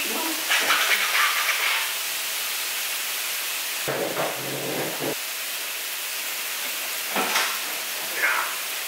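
Slices of pork belly sizzling on a griddle, a steady hiss, with a few short louder noises over it.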